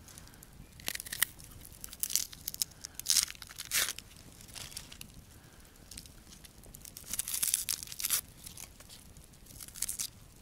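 A knife cutting and peeling an onion: its dry papery skin tearing and crackling in short, scratchy strokes, with a busier run of them about seven to eight seconds in.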